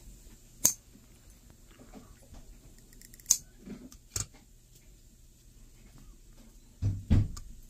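Cutting pliers snipping plastic off small circuit boards: three sharp snaps, about a second in and then at about three and four seconds, with light ticks of parts being handled between them. A brief low sound comes near the end.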